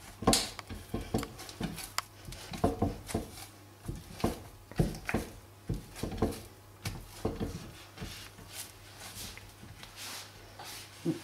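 Hands kneading a lump of homemade cold porcelain paste on a greased glass plate: irregular soft slaps and knocks as the still slightly sticky paste is pressed and turned against the glass.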